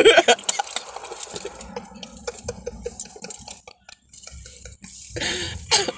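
A woman's loud burst of laughter at the start, then light clicks and scrapes of a utensil against a food container, and near the end a loud fit of coughing as she chokes on rice.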